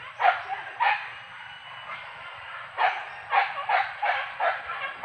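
Hunting dog barking sharply in the brush: two barks, then after a pause of about two seconds a quick run of about seven barks.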